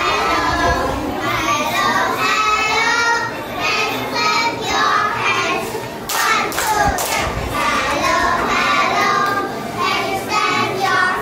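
A group of young children singing together into microphones, with a few hand claps or thumps about six seconds in.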